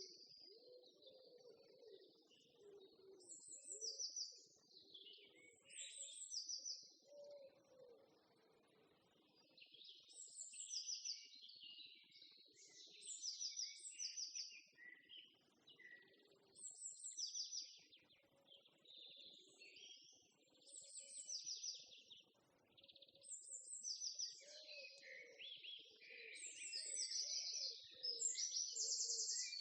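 Several songbirds singing: repeated short chirps and trills, every second or two, throughout. Underneath are fainter, patchy low sounds.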